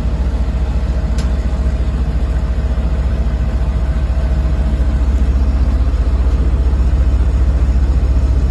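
An engine running steadily with a low, evenly pulsing rumble, the kind of sound a mini excavator's engine makes when it is left to run.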